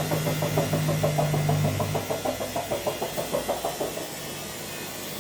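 Haier HW60-10636A washing machine running: a motor hum under a rhythmic knocking of about five beats a second from the turning drum. The hum stops about two seconds in, and the knocking slows and fades out about four seconds in as the drum coasts to a stop.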